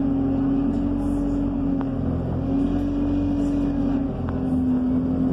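Bus engine and drivetrain running under way, heard from inside the passenger saloon: a low rumble with a strong steady whine that dips slightly twice.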